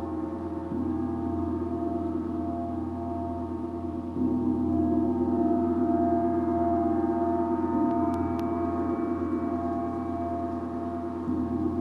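Gong ringing with a dense wash of sustained, overlapping tones. It swells louder about four seconds in and again near the end as it is played again softly.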